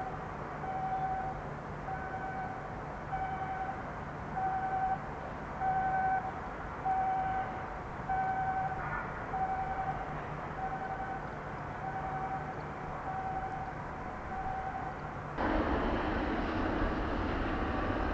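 An electronic warning beeper sounding a single steady tone about every 1.2 seconds, over a low steady hum. About fifteen seconds in, the beeping stops abruptly and gives way to louder, steady outdoor background noise.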